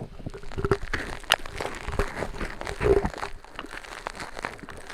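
A Nee Doh squishy stress ball with a fluffy cloud-dough filling squeezed close to the microphone, giving irregular crinkling, crunching sounds, with sharp clicks of rings knocking against the mic.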